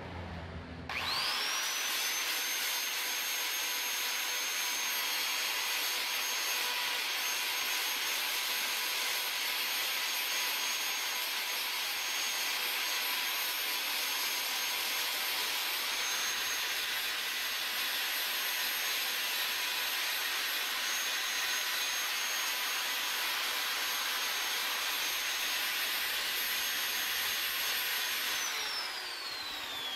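Electric drill with a homemade sanding attachment (sandpaper on a wooden block and bolt) spinning up about a second in and running steadily with a high whine while sanding the inside of a carved wooden charango body, then winding down near the end.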